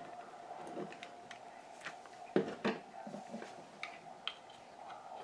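Faint scraping and clicking of a screwdriver prying an STK hybrid power amplifier module out of its Molex socket on a circuit board, with two sharper knocks about two and a half seconds in.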